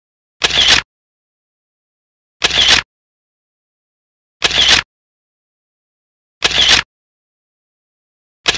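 Camera shutter sound effect, an identical short snap repeated evenly about every two seconds, with silence between.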